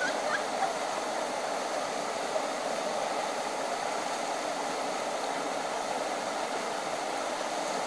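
Shallow river rapids rushing steadily over rocks: an even, unbroken sound of water.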